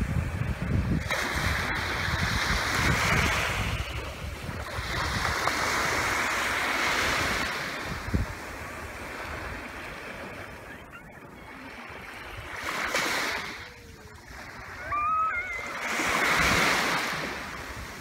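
Small sea waves washing up a sandy beach, the wash swelling and falling away about four times.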